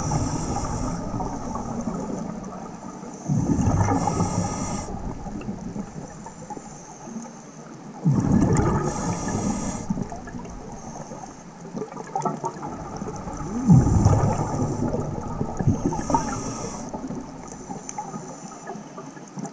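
Scuba diver breathing through a regulator underwater: about four breath cycles, roughly every four to five seconds, each a hiss of air through the regulator and a gush of exhaled bubbles.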